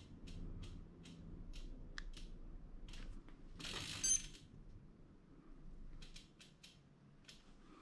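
Road bike's freewheel ratchet clicking in sharp, separate ticks that slow and thin out as the drivetrain coasts, with a short rustle of handling about halfway through and a few more clicks near the end.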